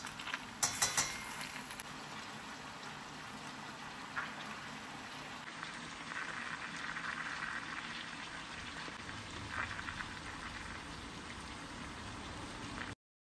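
Rice tapped out of a plastic mesh strainer into a stainless steel pot: a quick cluster of sharp taps about a second in. Then a few single taps and soft rustles as pepper and salt are sprinkled in, over a steady faint hiss.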